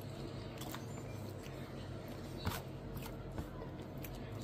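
Eating sounds: soft handling and a few light clicks of a utensil or takeout container, the sharpest about two and a half seconds in, over a steady low hum.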